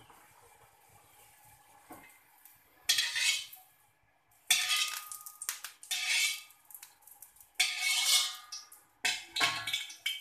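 Stainless slotted spatula scraping across the bottom of a metal wok to spread a little oil, in several separate strokes starting about three seconds in, a metallic rasp with a faint ring.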